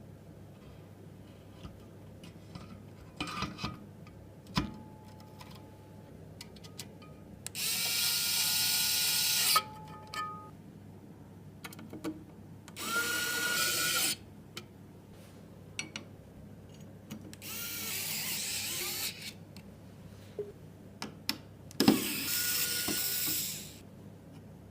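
Small electric screwdriver running in four short bursts of about two seconds each, driving screws, with light clicks and knocks of parts being handled between the bursts.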